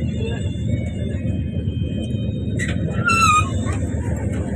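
Steady low rumble of a moving passenger train, heard from inside the coach. About three seconds in, a brief high voice cuts across it.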